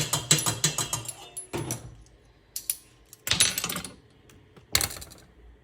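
A tablespoon rapped quickly against a pot, about seven sharp taps a second with a light ring, knocking a measured tablespoon of grated ginger in. Then come a few separate clinks and a short scraping clatter.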